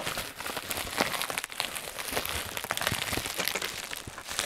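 Tissue paper crinkling and rustling in a rapid, irregular patter of crackles as it is pulled and peeled off a hardcover book by hand.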